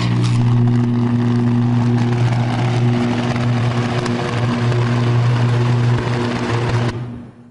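High-voltage electrical arc burning across substation conductors: a loud, steady, low buzzing hum with crackling noise over it, fading out near the end.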